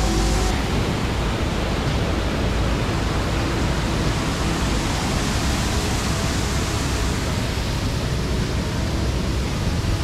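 Waterfall's falling water as a steady, full rush of noise.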